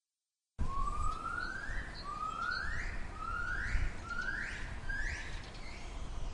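A bird calling: about half a second in, a series of six rising whistled calls begins, each sweeping upward. They come roughly one every 0.8 s and grow shorter as they go, over a low rumble of wind or handling noise.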